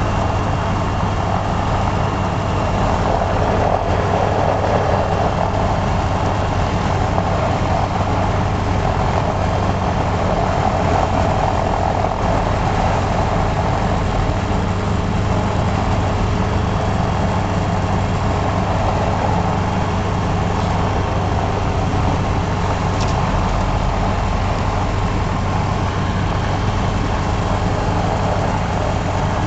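Diamond DV20 Katana's Rotax 912 four-cylinder engine and propeller running steadily at low power, heard from inside the cockpit.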